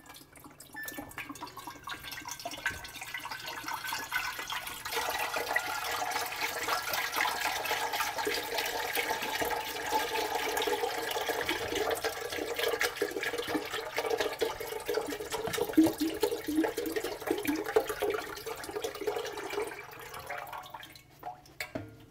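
Vegetable broth poured from cartons into a large stockpot already holding broth: a steady splashing gurgle of liquid into liquid. It builds over the first few seconds and trails off near the end as the carton empties.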